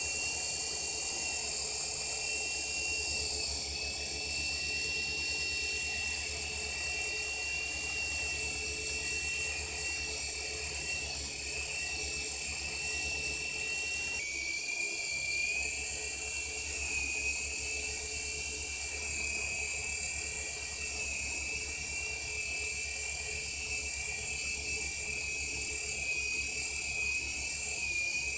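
Small coaxial toy RC helicopter's electric motors and twin rotors running steadily, a high-pitched whine with a slight wavering in pitch. The pitch steps down a little about halfway through.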